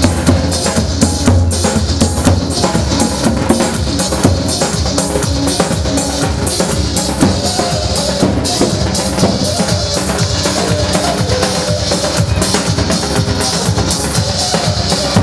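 Kurdish wedding line-dance music, a keyboard melody over a fast, steady drum beat.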